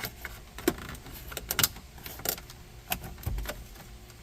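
Plastic dash trim panel being pried loose with a pry tool: a run of sharp, irregular clicks and creaks from the trim and its retaining clips, with a low thump about three seconds in.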